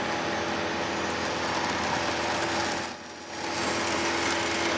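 HO-scale Model Power critter diesel locomotive running around the track, its cheap motor making a steady buzzing, whining noise. The sound dips briefly about three seconds in.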